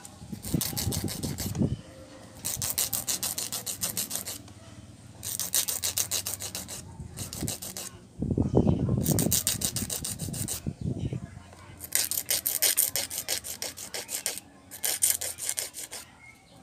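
A 100/180-grit hand nail file rasping back and forth across the edges of clear soft gel nail tips, shaping them. It goes in runs of quick strokes a second or two long, with short pauses between.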